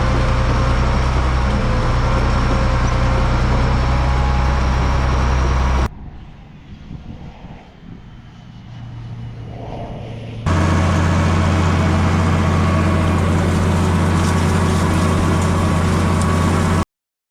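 A heavy vehicle engine running steadily at a constant pitch. It is heard in two loud stretches with a sudden drop to a much quieter sound between them, and it cuts off abruptly near the end.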